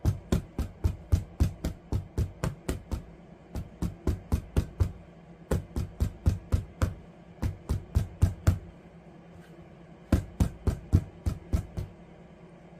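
Stone pestle pounding whole eggplants against a wooden cutting board: quick runs of dull thuds at about four strokes a second, with short pauses. The eggplant is being beaten to soften its flesh.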